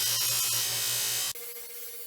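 Electric bench buffer running with a metal part held against the buffing wheel: a loud, steady hiss over the motor's hum. About 1.3 s in it cuts off abruptly, leaving a quieter sound with a steady whine.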